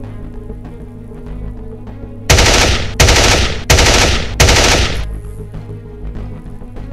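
Machine-gun fire sound effect: four short bursts of rapid automatic fire, back to back, starting about two seconds in and each lasting about half a second. They are much louder than the background music playing underneath.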